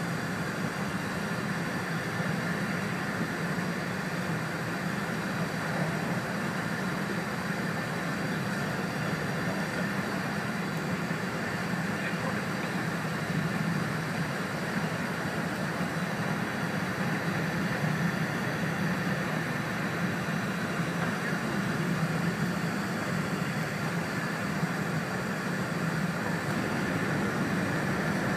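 Steady running noise heard inside the passenger cabin of an E4 series Max double-deck Shinkansen travelling at speed: an even low rumble with a hiss above it.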